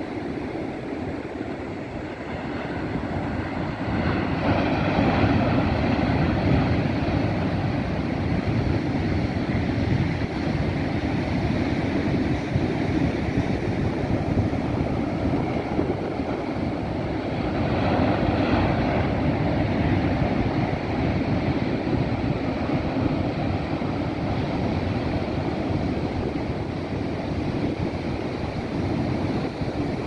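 Big ocean swell breaking on a rocky shore: a continuous rush of surf and whitewater, swelling louder as waves crash about four seconds in and again around eighteen seconds.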